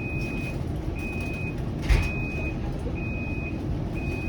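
A warning beeper on a Flexity Outlook streetcar sounds a steady high beep about once a second, each beep about half a second long, over the car's low rumble. A single thump comes about two seconds in.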